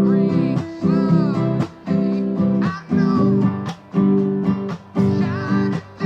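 Acoustic guitar strumming chords in a steady rhythm, with a melody line that bends up and down above the chords.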